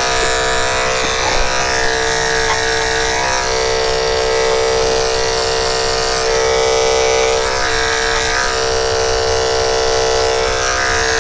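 Electric dog grooming clipper fitted with a #15 blade, running with a steady buzz as it trims the hair between a puppy's paw pads.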